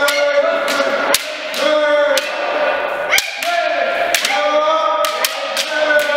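Kendo students shouting long, drawn-out kiai cries that overlap, with sharp cracks of practice-sword strikes roughly once a second.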